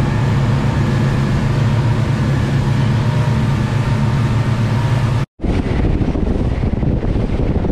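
Twin outboard motors running at speed on a boat, a steady engine drone under wind and rushing water. About five seconds in it cuts off sharply and comes back as wind buffeting the microphone and water spraying off the hull, with the engine less prominent.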